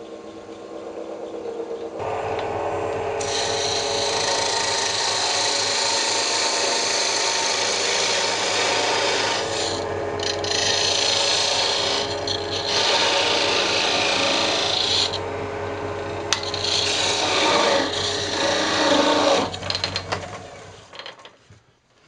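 Wood lathe spinning up, then a turning tool cutting into a spinning myrtlewood blank to part it off: a loud, steady scraping hiss with a few short breaks. Near the end the cutting stops and the lathe winds down.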